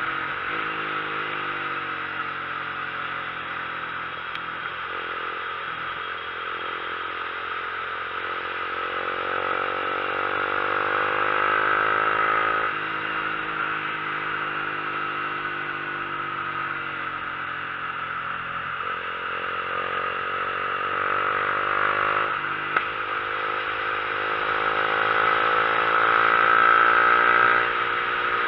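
A vehicle engine running on a downhill ride. Its pitch slides slowly and shifts abruptly a few times, as with gear changes, under a steady rush of wind.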